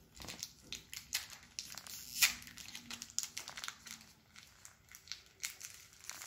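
Foil wrapper of a Pokémon trading card booster pack crinkling and crackling as hands tear it open, in irregular sharp crackles, the strongest about two seconds in.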